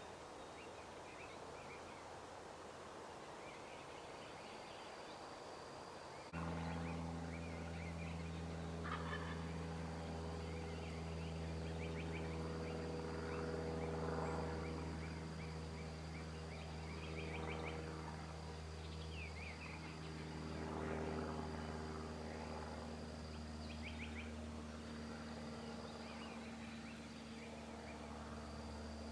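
A wild turkey gobbling several times, with small birds chirping. About six seconds in, a steady low hum starts and stays.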